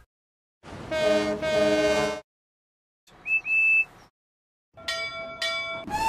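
A run of separate cartoon steam-engine whistle sound effects: a lower, multi-toned whistle held in two blasts about a second in, a short high double peep a little past three seconds, and another whistle with two sharp toots near the end.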